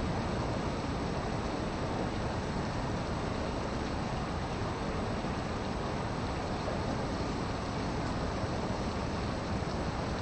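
Steady, even rumble and hiss of background noise with no distinct tones or individual events.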